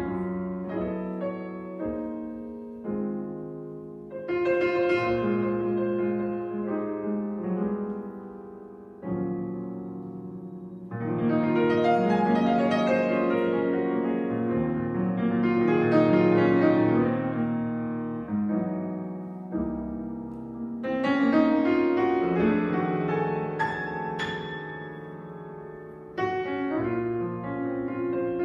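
Solo grand piano playing a slow jazz ballad: full chords struck and left to ring, the phrases swelling to louder passages in the middle and easing off again.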